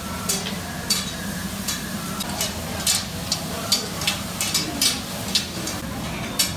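Stir-fry sizzling on a large round flat-top griddle, with about a dozen sharp, irregular clacks and scrapes of long metal grill sticks stirring and turning the food on the hot steel.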